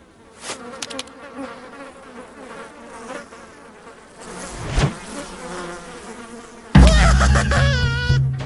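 Cartoon housefly buzzing, its pitch wavering, with a quick sweep about five seconds in. Near the end a sudden, much louder burst of cartoon sound effects starts, with a low hum and wobbling, sliding tones.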